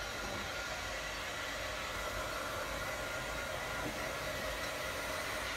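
Handheld hair dryer running steadily, blowing over freshly painted wood to dry the paint. It makes an even rushing hiss with a faint motor whine.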